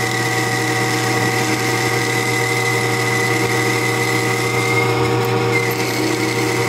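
Metal lathe running while its cutting tool turns down the end of a pushrod tube, with a steady high-pitched whine from the cut over the machine's hum.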